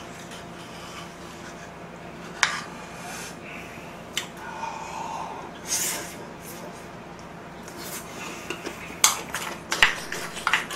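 Table utensils clicking against dishes: a few isolated clinks, then a quick run of several near the end.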